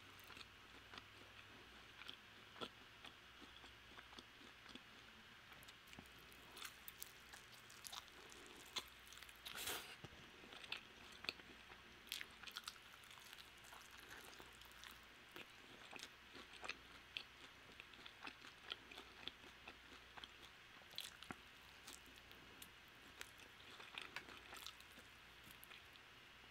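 Faint eating sounds: biting into and chewing a crispy Korean fried chicken wing, heard as scattered small crunches and wet clicks.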